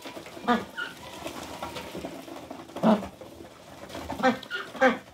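White domestic ducks giving a few short, low calls while they feed, with two calls close together near the end.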